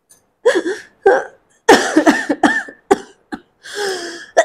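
A woman sobbing in short, catching breaths: several brief voiced sobs and whimpers in a row, the loudest about two seconds in.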